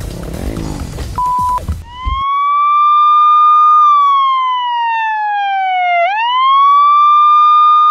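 Noisy amateur-footage audio with voices and a short beep, cut off about two seconds in by a siren. The siren's wailing tone rises, falls slowly, then rises quickly again about six seconds in and holds high.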